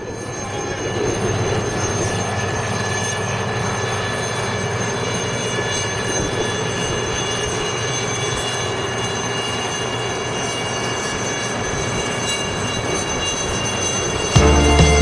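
Aircraft engine running steadily, a constant rushing noise with several high, unchanging whine tones on top.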